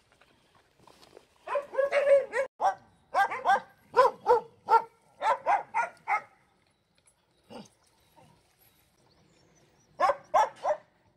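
Laika puppies yapping in play: a quick run of about a dozen short, high barks, a pause, then a few more near the end.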